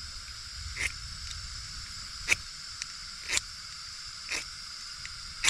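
Ferro rod scraped with its striker about once a second, each a short rasping strike throwing sparks, over a steady hiss: trying to light a gas camping stove by spark because the lighter has stopped sparking.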